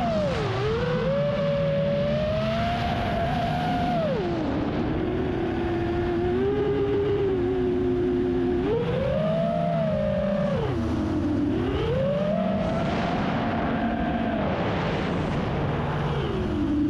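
Engine running continuously, its pitch rising, holding and dropping again several times as the throttle or load changes.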